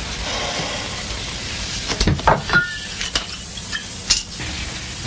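A few glass clinks and handling knocks as a drinking glass is picked up and set down, a cluster about two seconds in and single ones near three and four seconds, over a steady hiss.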